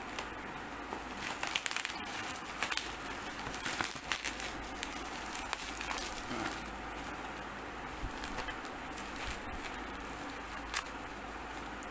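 Plastic bubble-wrap mailer crinkling and crackling as hands pull at it and press on it, a quick run of crackles in the first half, then scattered clicks with one sharp click near the end.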